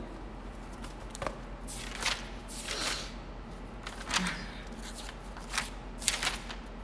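Faint rustling handling sounds: a few short, soft swishes spread through the seconds, over a low steady hum.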